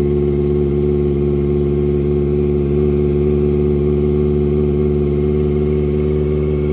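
Kawasaki ZX-25R's 250 cc inline-four idling steadily through a high-mounted Prospeed Shark slip-on silencer on a Proliner header, just after a cold start. The exhaust note is even and unchanging, calm and mellow.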